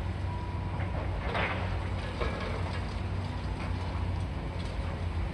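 Diesel engine of a high-reach demolition excavator running steadily, with scattered crunches and clatters of concrete and debris breaking off and falling, the loudest about a second and a half in.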